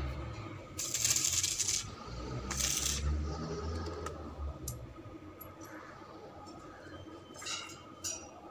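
Metal clinking and rattling on a steel spiral staircase as a man moves about and works on it. Two short hissing bursts come early, and a few ringing metallic clinks near the end.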